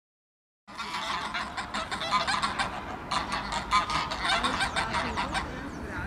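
Greylag and Egyptian geese honking in rapid, overlapping calls. The calls start just under a second in and thin out near the end.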